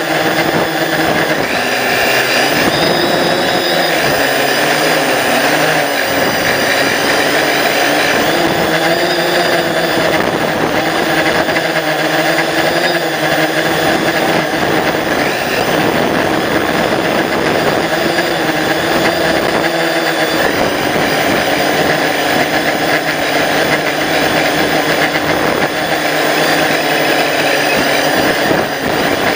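Drone's electric motors and propellers whining steadily while hovering, heard up close from the drone's own camera, the pitch wavering up and down every few seconds as the motors adjust.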